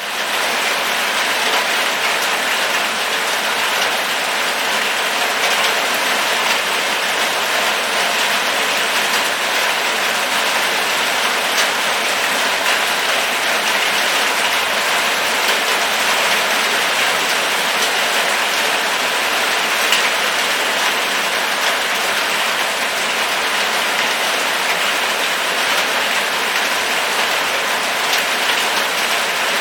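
Steady rain falling, an even hiss with the patter of drops hitting surfaces.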